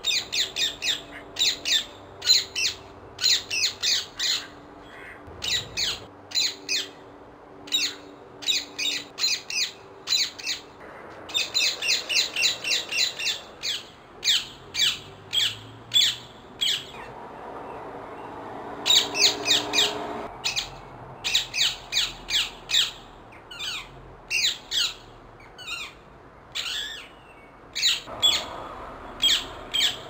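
Rose-ringed parakeet (Indian ringneck) giving shrill squawking calls in quick runs of several a second, broken by short pauses.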